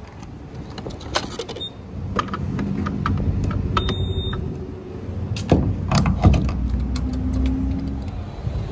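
Refuelling a pickup truck at a gas pump: clicks and clunks of the fuel door, filler cap and nozzle being handled, then a steady low hum of the pump running as fuel flows into the tank, with louder knocks of the nozzle about six seconds in.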